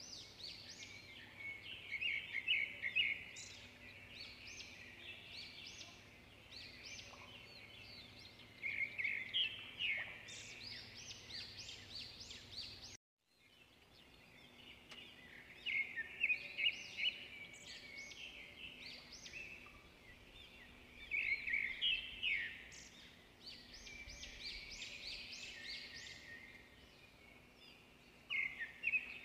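Small birds chirping and twittering in recurring bursts of quick, high notes every few seconds, over a faint steady hum. The sound cuts out for a moment about halfway through.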